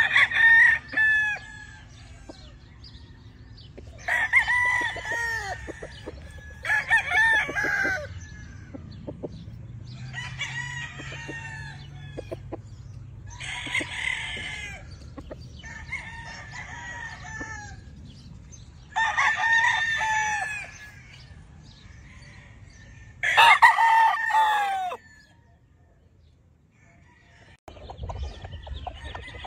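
Gamefowl roosters crowing one after another, about nine crows in all, each lasting a second or two, some close by and loud, others fainter.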